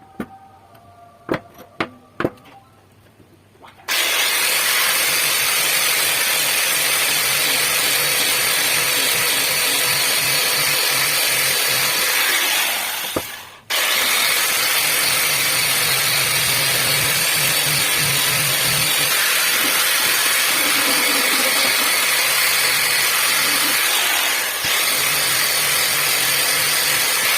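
A few sharp clicks, then a power tool starts about four seconds in and runs steadily with a loud, even rushing noise, cutting out briefly around the middle and starting again.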